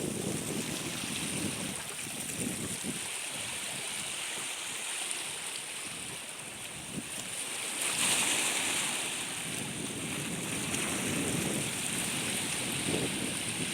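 Wind buffeting the microphone in uneven low gusts over a steady rushing hiss, with a faint steady high tone above it.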